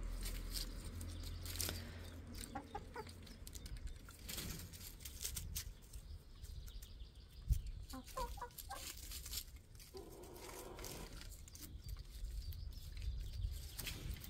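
Chickens clucking softly now and then, with scattered small clicks.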